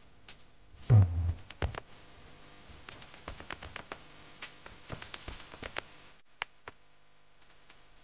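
A heavy thump about a second in, then a run of short, irregular clicks and taps that fade out about six seconds in.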